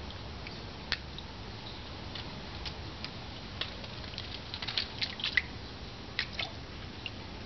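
Light splashes and drips from a cat's paw dabbing at the surface of pond water: a scattering of short, sharp sounds, thickest about halfway through.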